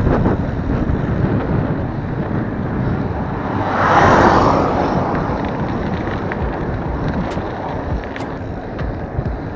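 Wind rushing over a moving microphone, a steady buffeting noise, with a louder swell about four seconds in.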